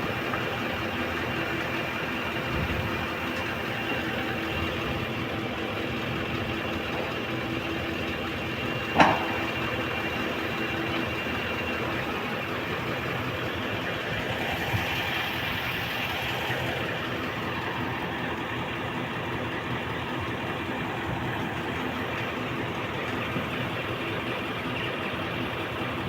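An engine running steadily with a constant hum, with one sharp click about nine seconds in.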